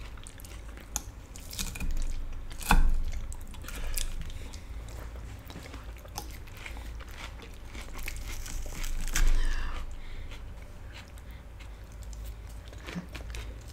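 Close-miked chewing and biting of tortellini casserole and crisp lettuce salad, with wet mouth sounds and a few sharp clicks, the loudest about three seconds in.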